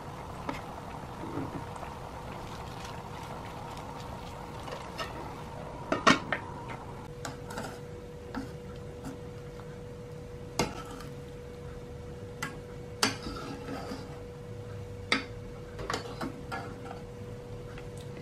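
A ladle clinks and knocks against a cooking pot as a pot of curry is stirred: a dozen or so sharp clinks at irregular intervals, the loudest about six seconds in. A faint steady hum lies beneath.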